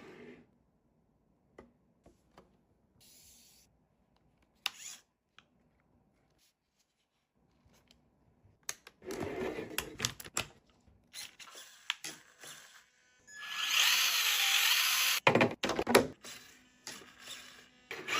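Small electric motor of a toy RC car whirring in bursts, its pitch wavering as it speeds up and slows. The longest and loudest run comes after the halfway point and cuts off sharply, with clicks and handling knocks before it.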